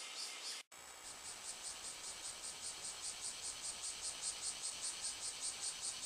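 Cicadas calling in a rhythmic, pulsing high-pitched chorus of about five or six pulses a second. A short dropout breaks it just under a second in.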